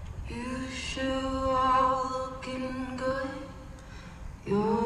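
Music from a marching band field show: long held notes at a steady pitch, with a new phrase coming in about four and a half seconds in.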